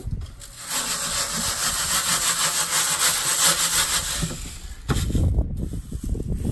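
Acacia lasiocalyx seed being shaken in a sieve: a dense rustling hiss of small hard seeds and chaff for about four seconds. Then the hiss stops and a low rumble follows.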